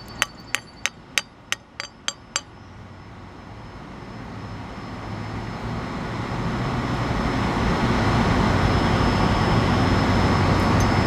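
A chipping hammer striking a fresh weld bead about eight times at roughly three blows a second, knocking off the remaining slag. After that a steady low rumbling noise swells up over several seconds and holds.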